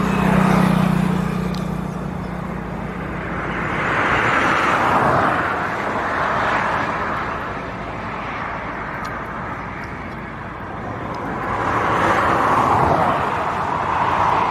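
Road traffic on a highway: vehicles pass one after another, a rough hiss that swells and fades, loudest about four seconds in and again near the end. A low engine hum fades out over the first couple of seconds.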